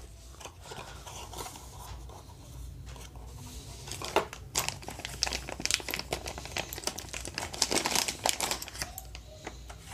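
Clear plastic bag around a wireless mouse crinkling as it is handled and opened: a few faint crackles at first, then dense, irregular crinkling from about four seconds in.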